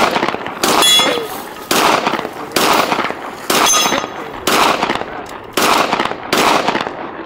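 Eight rifle shots from a designated marksman rifle, fired at a steady pace of about one a second. A few are followed by the thin ring of a bullet striking a steel target.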